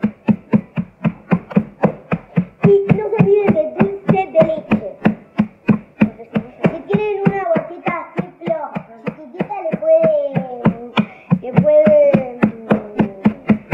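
A wooden rolling pin pounding chocolate cookies inside a plastic zip-top bag on a countertop, crushing them to crumbs with quick, even blows, about four a second. A child's wordless voice rises and falls over the pounding now and then.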